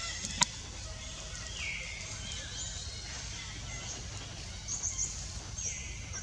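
Outdoor ambience of birds chirping and calling in the background, with a couple of short falling calls, over steady low noise. One sharp click about half a second in.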